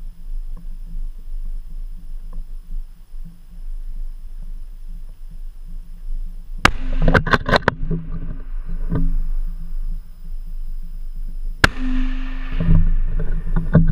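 Two shots from a .30-06 Tikka T3 Lite rifle, about five seconds apart, the first about six and a half seconds in. Each is a sharp crack with a ringing tail, and a quick run of clicks follows the first.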